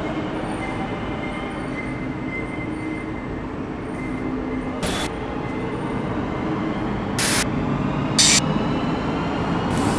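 Passenger train running, a steady rumble with a thin wheel squeal and a few short sharp sounds from the running gear, the loudest near the end.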